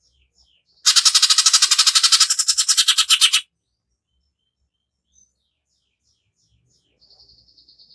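Cucak ijo (green leafbird) giving one loud, harsh, rapid rattling burst of about a dozen pulses a second, lasting about two and a half seconds and starting about a second in: the rough 'tembakan' phrase used to provoke other birds. A faint fast trill starts near the end.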